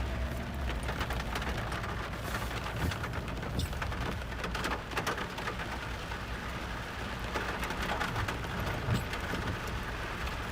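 Off-road vehicle's engine running with a low rumble, with a steady patter of small crackles and ticks over it.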